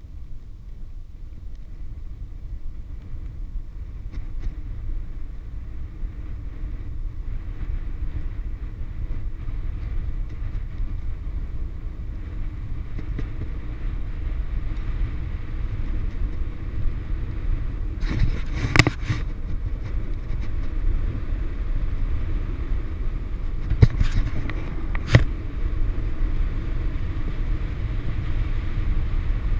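Wind rushing over an action camera's microphone on a bicycle coasting fast downhill, with a low rumble of tyres on asphalt, growing steadily louder as speed builds. A few sharp knocks come a little past halfway and a few more about five seconds later.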